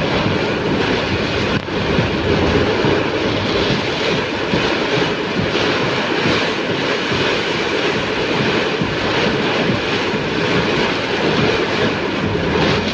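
Heavy rain pouring down in strong wind, a loud steady rushing noise.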